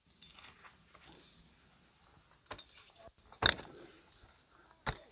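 A few short clicks and knocks, the loudest about three and a half seconds in, as the tarp's main pole is gripped and lowered.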